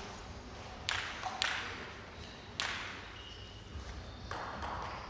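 Table tennis ball hitting a bat or the table: sharp clicks with a short echo from the hall, three louder ones about a second in, half a second later and at about two and a half seconds, then fainter ones near the end.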